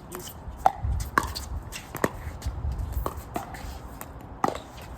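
Pickleball rally: a series of sharp, hollow pops as paddles strike the plastic ball and it bounces on the court, about one every half second to second. Wind rumbles on the microphone through the first part.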